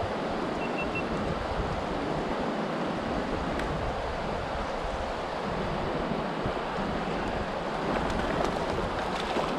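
Fast river current rushing over rocks, with wind buffeting the microphone; near the end a hooked rainbow trout splashes at the surface.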